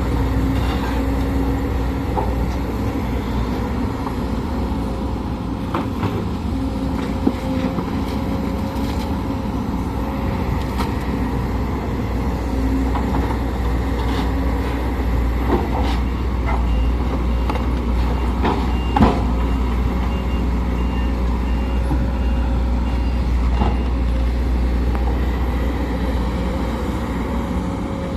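Sumitomo SH210 hydraulic excavator working: its diesel engine running steadily under load with a steady hydraulic whine, and a few clanks from the bucket and machine. A beeping alarm sounds in the second half.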